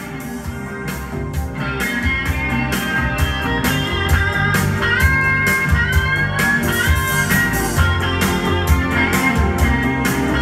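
Music with guitar over a steady drum beat, swelling in loudness over the first couple of seconds.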